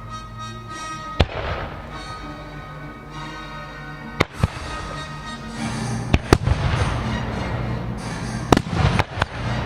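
Fireworks shells bursting with sharp bangs and crackle over music played on loudspeakers, in a musical fireworks display. A single bang comes about a second in; from about four seconds on, several more bangs follow and the crackling grows denser and louder.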